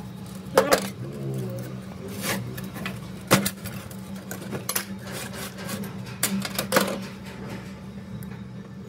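Metal pump parts and hand tools knocking and clinking as they are handled, with about half a dozen sharp knocks at uneven spacing over a steady low hum.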